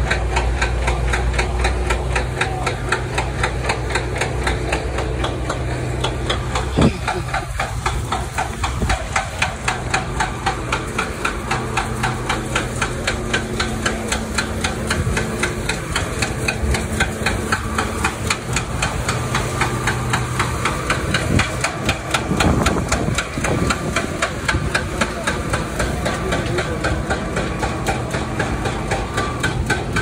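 Heavy construction machinery: a truck's diesel engine running steadily under a rapid, even knocking of several strokes a second that keeps on without a break.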